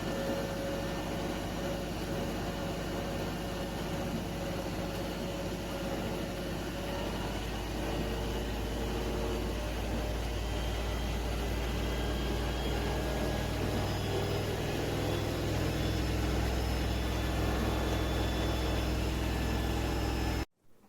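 Mini countertop dishwasher running: a steady motor and pump hum that grows a little stronger partway through, then cuts off suddenly near the end.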